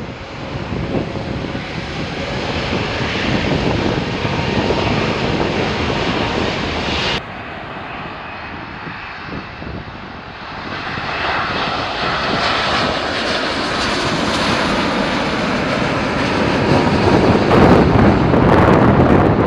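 Jet airliner engines on landing, two aircraft one after the other. First an Air Canada narrowbody jet runs steadily as it touches down, then the sound cuts off abruptly about seven seconds in. A United Boeing 787 Dreamliner on final approach follows, its engines whining with a slowly falling pitch and growing louder to the loudest point near the end.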